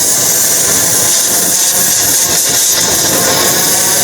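Cutting torch running with a steady, loud hiss as it cuts through a stuck collar on a shaft.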